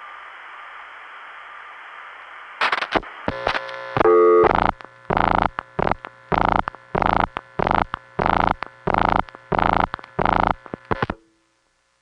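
Open telephone line hiss, then switching clicks about two and a half seconds in, followed by a pulsing tone on and off about twice a second: a fast-busy (reorder) signal on a 1970s long-distance line. The tone cuts off abruptly near the end.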